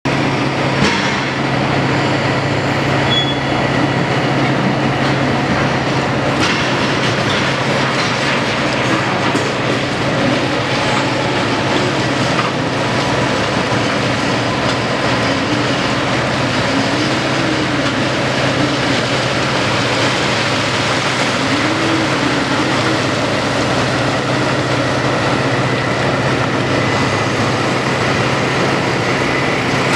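P&H 4100C electric rope shovel digging and swinging with a haul truck alongside: a steady, heavy machinery hum, with a whine that rises and falls a few times and a few sharp clanks in the first half.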